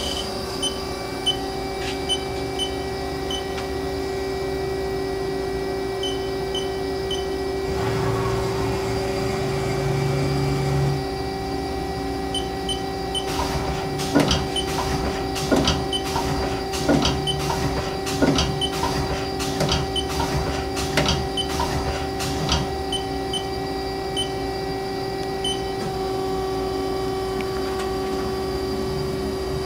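Haas SL-20T CNC lathe running with a steady machine hum. Midway through, a low drone runs for a few seconds and then stops, followed by a string of sharp metallic clunks, one or two a second, for about ten seconds. Near the end a higher steady tone joins the hum.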